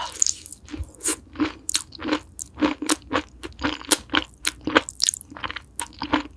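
Close-miked eating: a person chewing crisp food, with sharp crunches about three times a second.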